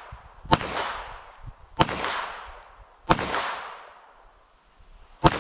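Taurus 92 9mm pistol firing four shots, the first three about a second and a quarter apart and the last after a longer pause, each followed by a fading echo.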